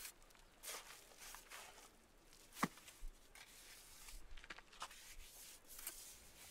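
Faint, scattered scraping and crumbling of damp mud as hands cut out and smooth the fire-chamber openings of a mud-and-brick cookstove, with one sharp click about two and a half seconds in.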